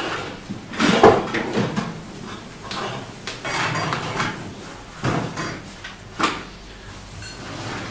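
Knocks and clatter of hard objects being handled and set down, irregular, with the loudest knock about a second in and others around five and six seconds in.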